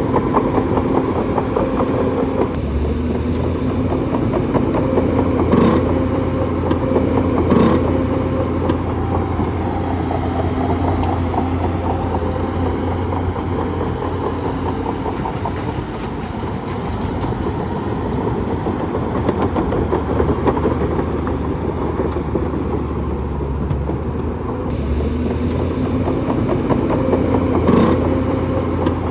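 Bulldozer's diesel engine running steadily, with a few sharp knocks about six, eight and twenty-eight seconds in.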